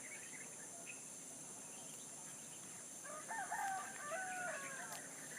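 A rooster crowing once, starting about three seconds in and lasting nearly two seconds, over a steady high-pitched insect drone.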